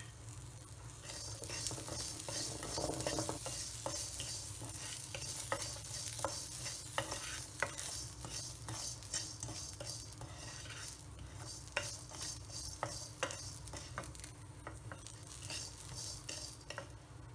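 Wooden spoon stirring and scraping dal grains, whole spices, shallots and garlic around a small nonstick pan, with scattered clicks of spoon on pan over a light, steady sizzle as they roast on low heat.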